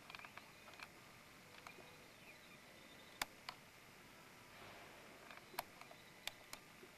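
Near silence: faint room hiss broken by a few scattered sharp clicks, the loudest about three seconds in.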